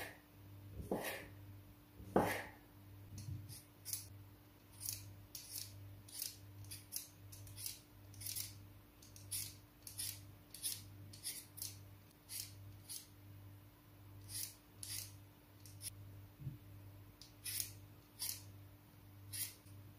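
A kitchen knife slicing through a sausage onto a wooden cutting board, three cuts in the first couple of seconds. Then a hand peeler scraping the skin off raw potatoes in quick short strokes, about one or two a second.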